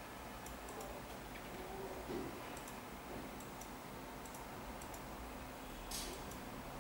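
Faint, irregularly spaced light clicks and ticks over a low steady hum, with a brief rustle just before the end.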